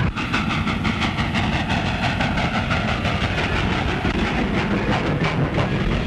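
Steam train running at speed: a rapid, even clickety-clack of wheels over the rail joints, with a hiss of steam, starting suddenly.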